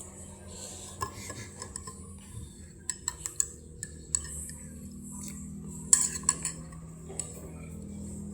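Cutlery and dishes clinking in scattered sharp taps, the loudest about six seconds in, over a steady low hum.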